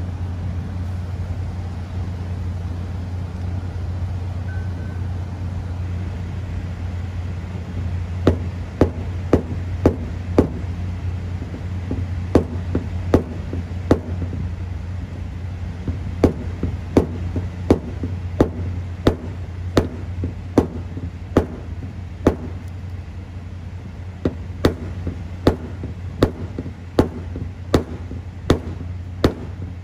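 Sharp taps of a paintless dent repair hammer on a car body panel, tapping down a body line dent. They start about eight seconds in and come in quick runs of two to five taps, over a steady low hum.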